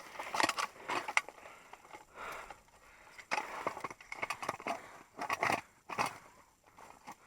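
Irregular crunching and scraping in snow as a person moves about and treads.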